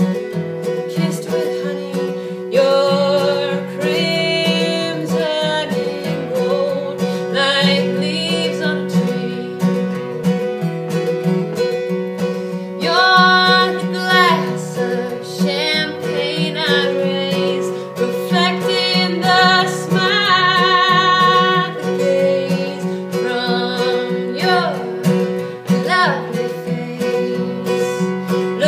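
A woman sings a folk song to a strummed acoustic guitar, holding some long notes with vibrato.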